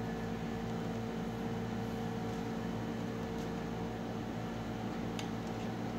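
Steady mechanical hum with a constant low tone over a bed of noise, and a faint click about five seconds in.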